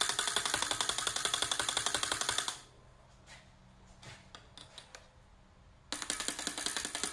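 Rapid metallic rattling as a screwdriver is rapped back and forth between the loops of steel crucible tongs. It stops about two and a half seconds in, leaves a few faint taps, then starts again near the end. The rapping loosens a wooden pattern in a sand mold so it can be lifted out.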